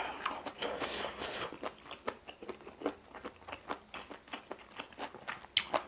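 Close-miked chewing of a mouthful from a spicy octopus and glass-noodle stir-fry: a steady run of short wet mouth clicks, a few a second, with a sharper click near the end.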